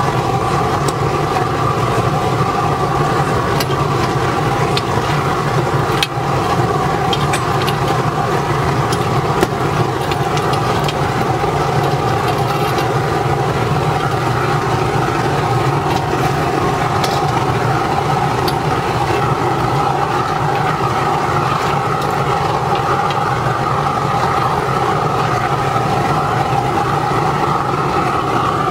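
Forced-air waste-vegetable-oil furnace burner running steadily: the blower's hum and the rush of the burner flame, with a few light clicks scattered through.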